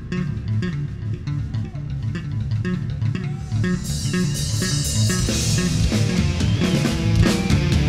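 Heavy metal band playing an instrumental passage without vocals: bass and guitar over drums. About halfway through, cymbals and the full drum kit come in and the music grows louder.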